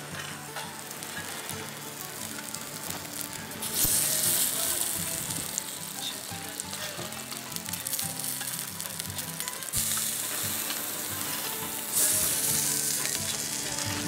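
Scallops in their half shells sizzling on a charcoal grill, the sizzle swelling louder about four seconds in and again near the end.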